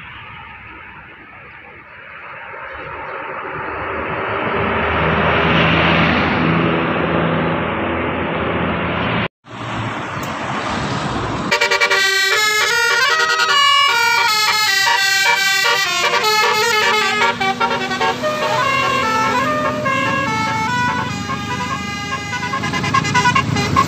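A bus's multi-tone 'telolet' air horn plays a quick stepping melody of several notes over its running engine. Before that, in a separate clip, a passing vehicle makes a rush of engine and road noise that grows louder and then cuts off.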